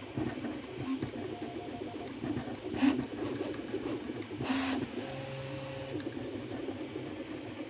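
Original Prusa Mini 3D printer printing: its stepper motors whine and buzz in short tones that change pitch as the print head moves. Two brief, louder rasping bursts come about three and four and a half seconds in.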